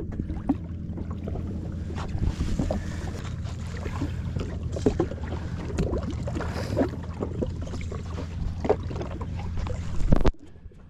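Jet ski engine idling with a steady low hum, water slapping against the hull, and small knocks of gear being handled. The sound drops away abruptly near the end.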